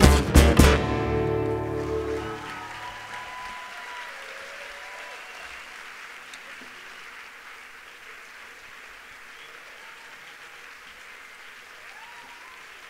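The final strummed chords of flamenco-rumba acoustic guitars, struck hard and ending under a second in. The last chord rings out and fades over about three seconds into steady audience applause.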